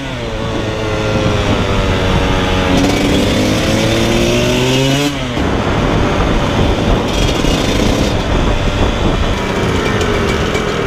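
Dirt bike engine running under way: the note drops at a gear change near the start, then climbs steadily as the bike picks up speed. About five seconds in the clear engine note gives way to a rougher rumble with no clear pitch.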